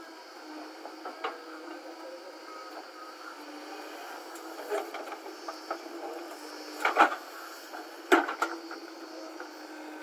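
JCB 3DX backhoe loader's diesel engine running steadily, with two loud thuds about a second apart in the second half as a bucketload of soil and stones drops into the steel tractor trolley.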